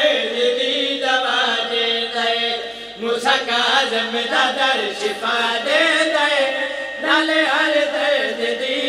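Men's voices chanting a Punjabi devotional qasida: a lead reciter's wavering melody with backing singers joining on microphones, the chant held on long notes with two short breaths.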